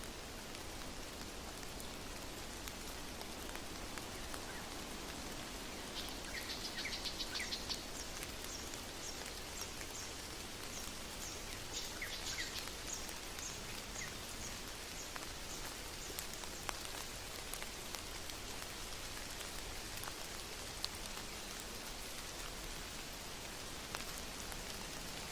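Steady rain falling, with occasional single louder drops. A bird gives a quick flurry of high notes about six seconds in, then a spaced series of short high calls that runs for several seconds.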